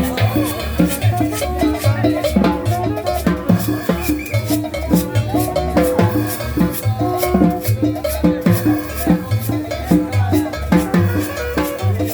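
Latin dance music with a steady beat, bass and hand percussion.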